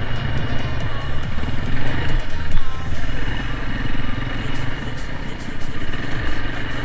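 Motorcycle engine running steadily while riding, with a rushing noise over it.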